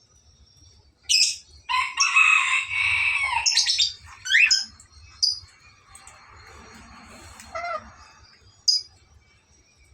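Black-capped lory calling: a sharp shriek about a second in, a long harsh screech, a few quick squeaks, then short sharp calls spaced out near the end.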